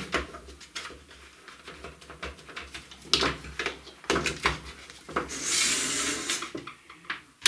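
Handling noise from a Dremel 3000 rotary tool's plastic housing being gripped and shifted on a wooden workbench: scattered clicks and knocks, the sharpest about three and four and a half seconds in, then a rustling hiss from about five to seven seconds in.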